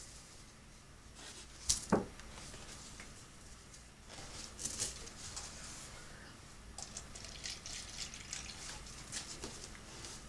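Water pattering and dripping onto pepper plants and soil during watering, as irregular small splashes and drips. There is a sharp knock just under two seconds in.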